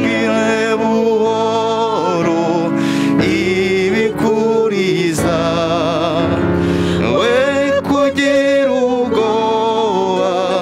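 Music: a solo singing voice holds long, wavering notes over sustained accompaniment.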